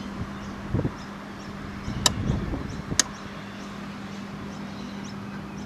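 Handling of the Infobyte iM4 noise logger's case with a few dull knocks, and two sharp clicks about a second apart as its buttons are pressed to switch it off, over a steady low hum.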